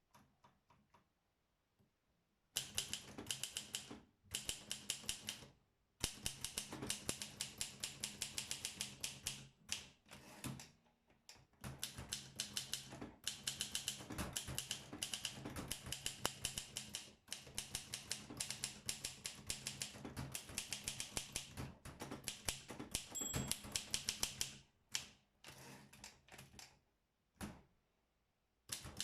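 Olympia SM7 manual portable typewriter being typed on: quick runs of key strikes, several a second, broken by short pauses.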